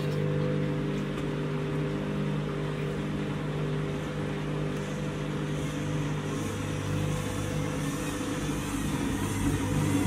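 Front-loading washing machine tumbling a load of laundry in deep water: the drum motor hums steadily under the swish and slosh of the water.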